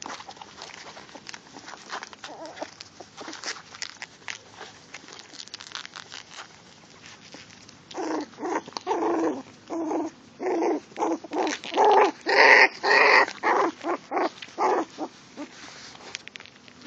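Cheagle puppy (Chihuahua–beagle mix) giving a quick run of short yips, about two a second, starting about halfway through and lasting some seven seconds. Before it, soft rustling and scuffling of puppies squirming on denim and being handled.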